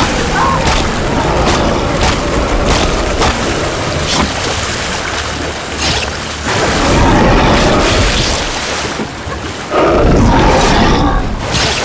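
Movie sound mix of a shark attack: a man screaming, repeated booming hits and water splashing.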